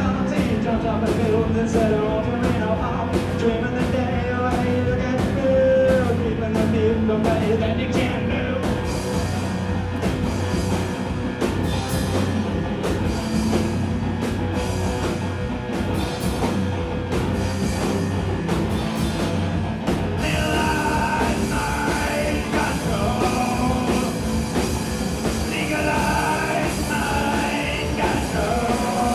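Live rock band playing: electric guitar, drums with regular cymbal hits, and synth, recorded from the back of the room. A higher line of short melodic notes comes in about two-thirds of the way through.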